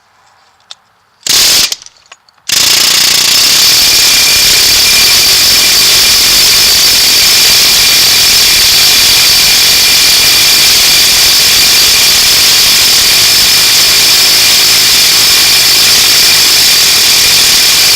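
Pneumatic air hammer hammering on the side of a truck driveshaft U-joint to free a stuck bearing cap. It gives a brief burst, then runs continuously and very loudly for about fifteen seconds.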